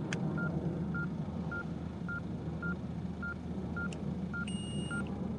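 Patient monitor beeping with each heartbeat: short even beeps of one pitch, about two a second, the sign of a raised pulse. Near the end an infrared forehead thermometer gives one longer, higher beep as it takes a reading.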